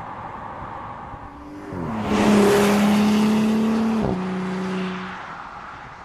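2018 Audi SQ5's turbocharged V6 accelerating hard, its note climbing slowly for about two seconds, then dropping sharply with an upshift about four seconds in and fading away. Before that, steady road and tyre noise.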